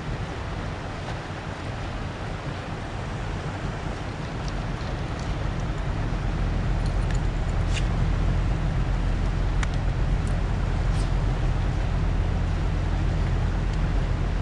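Boat's outboard motor running steadily, getting louder a few seconds in.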